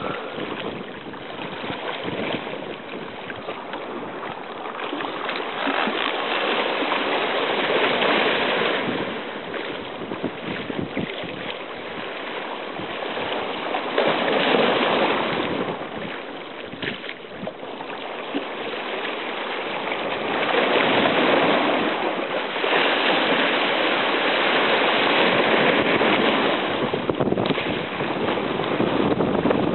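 Small sea waves washing in over shoreline rocks and draining back, a hissing surf that swells and fades in surges several seconds apart.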